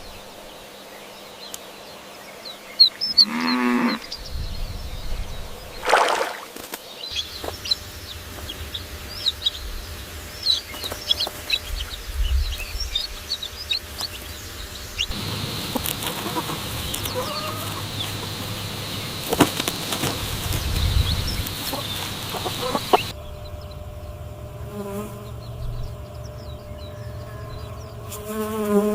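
A run of short animal recordings cut together: high chirps and fowl calls, with a buzzing insect starting near the end.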